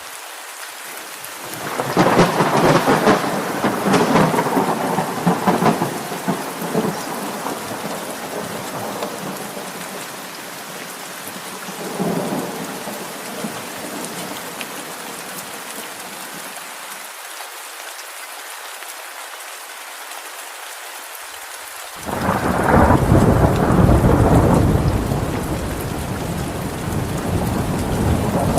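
Steady rain falling, with thunder rolling through twice: a long rumble building about two seconds in and fading over several seconds, a smaller one near the middle, and a louder clap breaking suddenly near the end.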